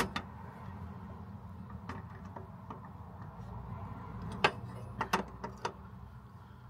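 Small ratchet and 7 mm socket working on a gas hob burner's jet: a few sharp, irregular metallic clicks and taps, loudest at the very start and in a cluster a little past the middle, over a low steady hum.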